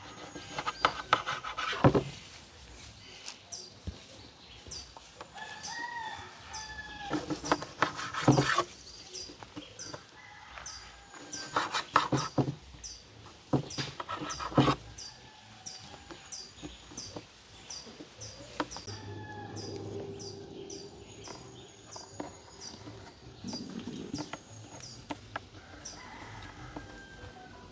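Kitchen knife cutting breadfruit on a laminate tabletop, in several bursts of rapid knocks. Chickens call and a small bird chirps over and over in the background.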